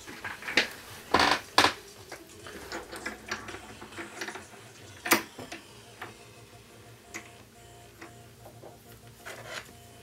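Irregular clicks and knocks of a small metal bench vise being worked by hand as a bullet connector is clamped in its jaws. The loudest knocks come about a second in and again about five seconds in, with lighter ticks between.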